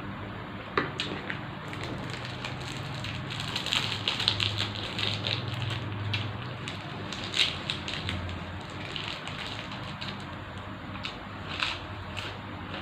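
Close-up eating sounds: a person chewing with wet mouth clicks and small crunches that come in bursts, busiest a few seconds in and again briefly later.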